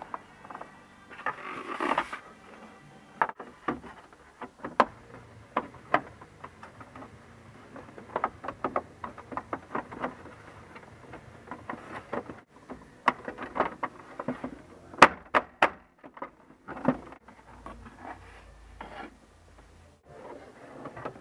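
Plastic lower dash trim panel of a third-generation Pontiac Trans Am being handled and fitted under the glove box: scattered clicks, knocks and rubbing of hard plastic, with a longer scrape near the start and a quick cluster of sharp clicks a little past the middle.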